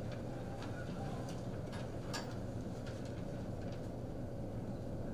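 Quiet room tone: a steady low hum with a few faint scattered clicks and rustles.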